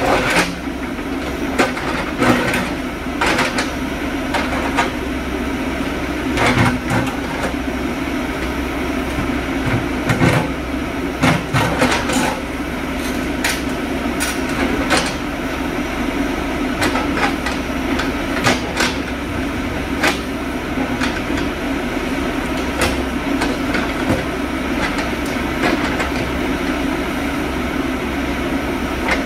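JCB backhoe loader's diesel engine running steadily while the backhoe bucket digs in broken rock, with irregular knocks and clatters of stone against the steel bucket throughout.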